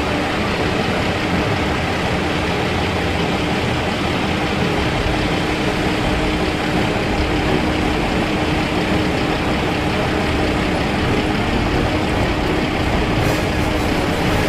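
Heavy farm machinery running steadily, a loud even engine noise with a constant hum.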